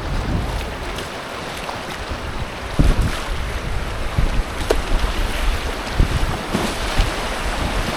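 Rushing creek water around an inflatable kayak, with wind rumbling on the microphone and several short splashes and knocks scattered through.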